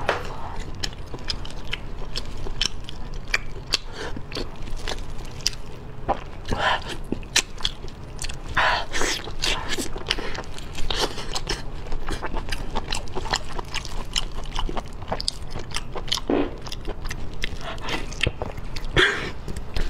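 Close-miked eating of braised octopus: biting and chewing, many short wet clicks and smacks from the mouth.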